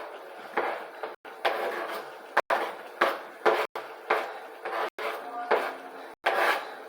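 Spoon stirring and scraping chicken and chopped vegetables in a pot, in short strokes about twice a second.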